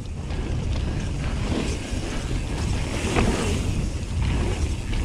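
Mountain bike riding fast down a dirt trail, heard from a camera mounted on the bike: wind buffeting the microphone over a steady rumble of the tyres on the dirt.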